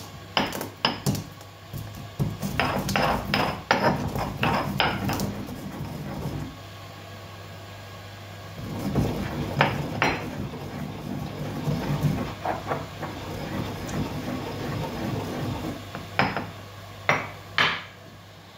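Black peppercorns, lightly toasted, being pounded and ground with a stone pestle in a stone mortar. There are sharp stone-on-stone knocks at first, then a stretch of rough grinding, and a few more knocks near the end.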